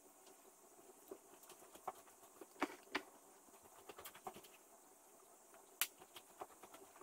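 Faint, scattered small clicks and taps over a low hiss, with two sharper clicks close together a little under three seconds in and another near six seconds.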